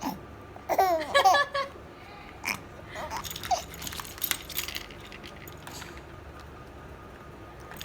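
A baby vocalising in a short high-pitched burst about a second in, then soft clicks and small mouth and handling noises.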